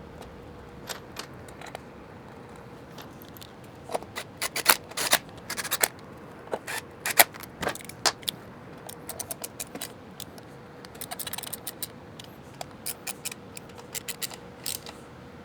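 Irregular light clicks, taps and scrapes of small metal and plastic parts being handled and fitted while reassembling a motorcycle.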